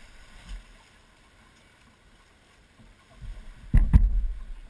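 Low wind rumble on the microphone, then near the end a few small knocks and two heavy thumps in quick succession as the boat on its trailer is handled and bumped by hand.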